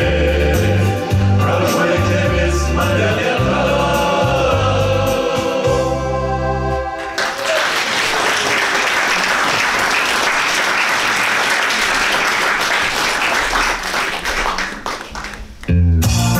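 A men's vocal ensemble singing in harmony over a bass-heavy instrumental accompaniment, the song ending about seven seconds in. Audience applause follows for about eight seconds, thinning out, and a new instrumental intro with a strong bass line starts near the end.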